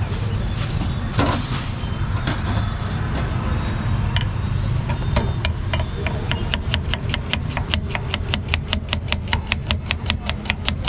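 Steady rumble of street traffic with a few scattered knocks. About six seconds in, a fast, even tapping begins, around seven taps a second.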